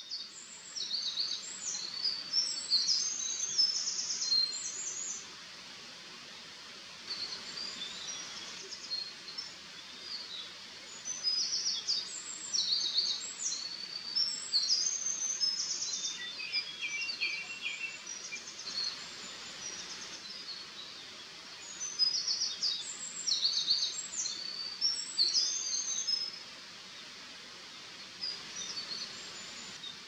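Eurasian wren singing: several long, loud bursts of rapid, high trills and warbles, each lasting several seconds, separated by short pauses, over a steady background hiss.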